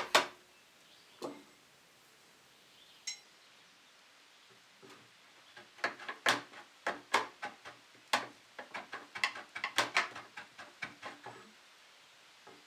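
Steel socket of an old framing chisel knocking and clicking against a carved dogwood handle as it is slid on and off to test the fit. A loud knock at the start and a couple of single taps, then a quick, irregular run of sharp clicks in the second half.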